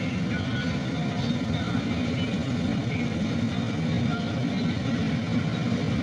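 Darshan 9000 combine harvester running steadily as it harvests, a low, even drone.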